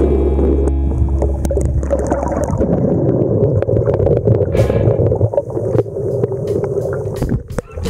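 Underwater sound picked up by a submerged camera moving through seagrass: a muffled, steady rushing with many sharp clicks and crackles. Guitar music cuts out under a second in.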